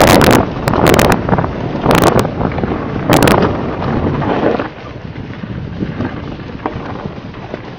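Mountain bike descending a loose, rocky trail: wind buffeting the microphone while the tyres and frame rattle over stones. There are several loud jolts in the first half, and about halfway through it drops to a quieter, steady rush.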